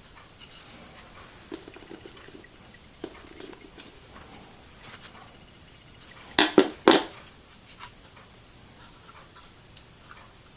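Small metal clicks and taps of a tiny screw being handled and fitted into the side of a 2.5-inch drive in a metal drive-adapter bracket, with two sharp clicks about half a second apart just past the middle.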